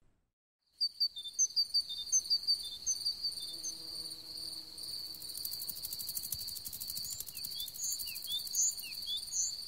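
Crickets trilling in a steady high-pitched chorus, starting about a second in, with short high chirps scattered over it.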